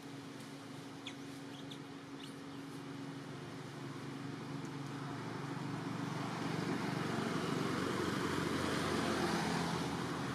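Road vehicle passing, its noise growing louder from about four seconds in, loudest near the end, then starting to fade.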